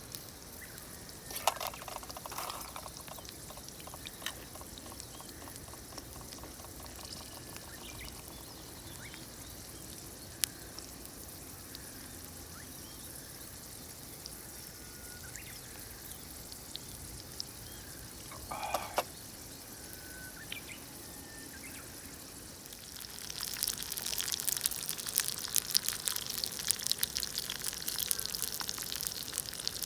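Low background hiss with a few knocks, then, about three-quarters of the way in, a loud, dense crackling sizzle of potatoes frying in a pan over a campfire.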